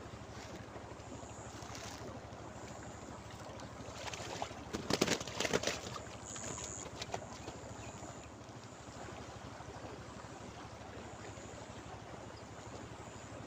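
Steady rush of river water flowing over a shallow bank. About four seconds in, a woven plastic sack crinkles and rustles in a short burst of about two seconds as a caught fish is put into it.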